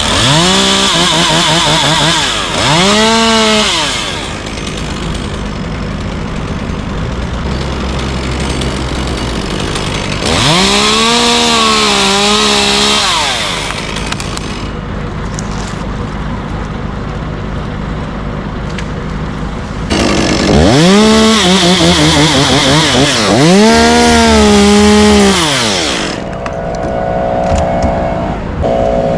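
Gas chainsaw revved to full speed and cutting tree limbs in three bouts, its pitch rising and falling with the throttle, and idling between the bouts.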